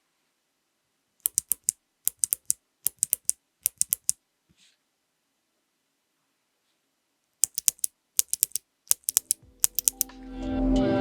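Bare clicky mechanical keyboard switches, without keycaps, pressed slowly down and released, each giving sharp clicks in quick clusters. There are two runs of clicks with a pause of a few seconds between them. Music fades in near the end.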